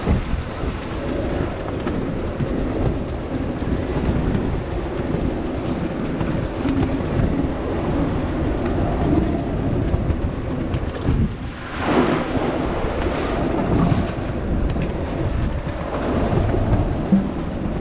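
Wind buffeting the microphone and waves rushing and splashing along the hull of a small sailing yacht driving through a rough, breaking sea. About twelve seconds in there is one louder surge of water.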